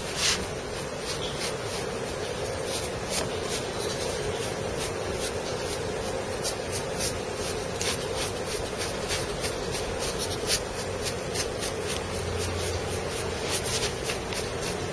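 Bristle paintbrush sweeping loose printing powder off a powder-bed 3D print: a dry, scratchy rubbing broken by many small ticks, over a steady background hiss.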